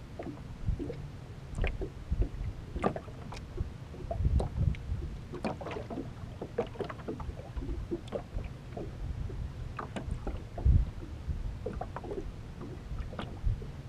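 Small waves lapping and knocking irregularly against the hull of an aluminum fishing boat, with low rumbling bumps and light clicks.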